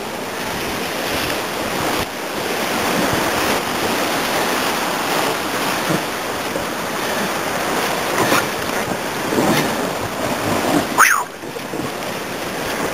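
Class III-IV river rapid rushing and crashing around a raft, with wind on the helmet-camera microphone. A short, sharp rising sound cuts through about eleven seconds in.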